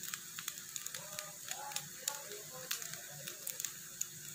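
Faint, irregular crackling and ticking of rice and scrambled egg frying in a hot kadai over a gas flame.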